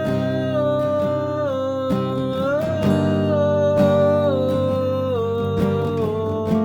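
Song with acoustic guitar and a singer holding one long note that slides slowly down in pitch in steps.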